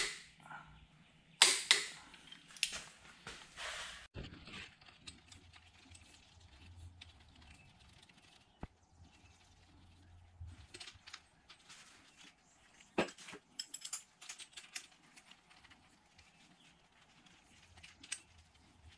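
Sharp metallic clicks and knocks of a socket wrench worked on the timing sprocket bolt of a Jeep 2.5 litre four-cylinder engine block, as the bolt is run in and tightened to torque. The loudest clicks come in the first few seconds, with another sharp one and a run of lighter clicks about two-thirds of the way through.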